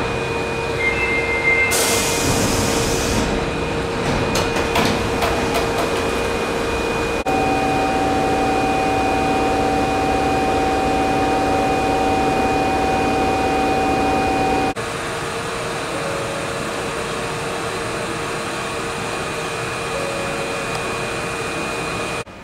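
Osaka Metro 21 series subway train standing at an underground platform: a steady equipment hum with a short burst of air hiss about two seconds in and a few clicks soon after. The pitch of the hum shifts abruptly about a third of the way through and again about two-thirds through.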